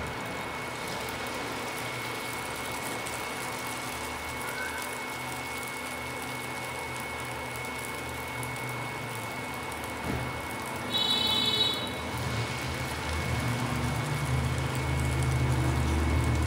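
Batter-coated banana pieces frying in hot oil in a non-stick pan, sizzling steadily, with a thin steady high tone over it. A brief high-pitched sound comes about two-thirds of the way in, and a low rumble builds over the last few seconds.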